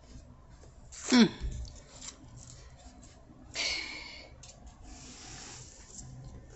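A woman's voice making an aeroplane noise: one quick swoop falling from high to low about a second in, then a short breathy hiss about three and a half seconds in.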